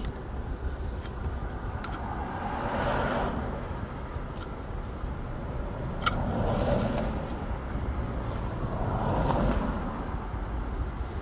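Cars passing one after another on a wet road, heard from inside a car in the rain: three slow swells of tyre hiss over a steady low rumble. A few light ticks land on the car, one sharper about six seconds in.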